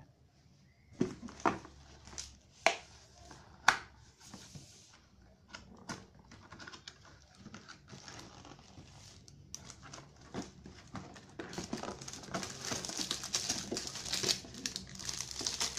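Cardboard gift box being opened: a few sharp snaps and knocks from its flaps and tabs in the first seconds, then handling noise, and near the end the plastic wrapping around a bottle crinkling steadily louder as it is lifted out.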